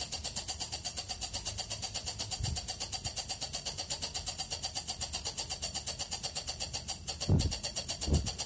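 Walang kecek insect calling in a fast, even pulsing chirp, about eight pulses a second, with a high ringing tone. A few soft low thuds come through, the last two near the end.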